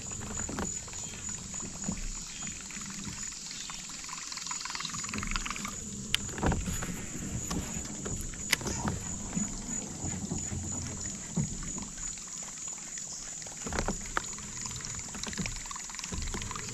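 Fishing gear in a kayak: a baitcasting reel being worked and light knocks and clicks against the hull, a few sharp clicks standing out, over low water and boat noise.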